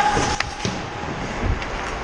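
Ice hockey skating heard from a player's head-mounted camera: skate blades carving and scraping the ice, with wind rushing over the microphone. A sharp crack of a stick on the ice or puck comes about half a second in.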